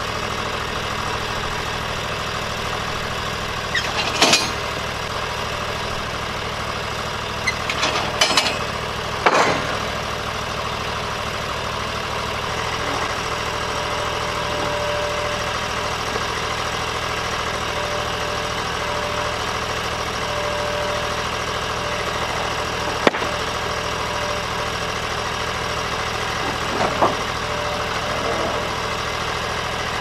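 Portable bandsaw mill's engine idling steadily, with a few sharp wooden knocks and clatters as boards are handled on the mill bed, the loudest about four, eight and nine seconds in.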